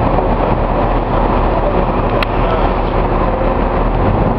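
Truck tractor unit's diesel engine running steadily, loud and close, with one sharp click about two seconds in.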